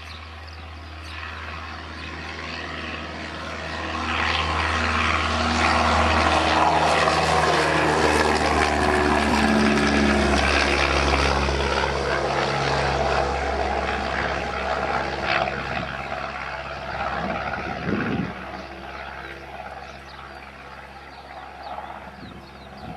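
Radio-controlled model plane's engine buzzing as it flies by, growing loud a few seconds in, its pitch sliding as it passes, then fading toward the end. A steady low rumble of strong wind on the microphone lies underneath.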